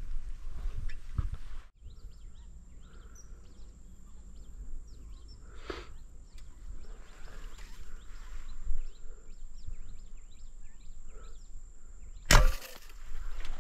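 Quiet outdoor ambience: a steady high-pitched buzz with scattered short bird chirps and a few faint knocks. A loud, sudden sound breaks in about twelve seconds in.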